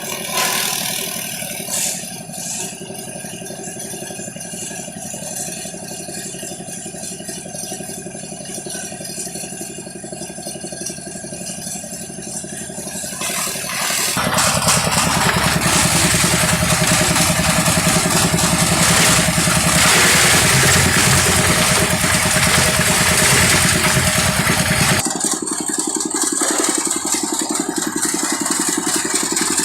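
Engine-driven grass chopper and hammermill running steadily. About halfway through it turns much louder and rougher for roughly ten seconds, then settles back to a steadier run.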